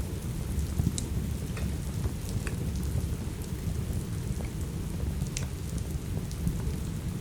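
Steady rain with a low rumble under it, mixed with a crackling wood fire that gives scattered sharp pops, the loudest about a second in and again about five seconds in.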